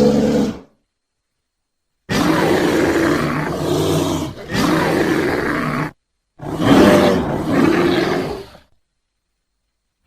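Bear roar sound effects standing in for the extinct cave bear. The tail of one roar fades out just after the start. About two seconds in comes a long roar with a brief break in the middle, and about six seconds in another roar, with dead silence between the calls.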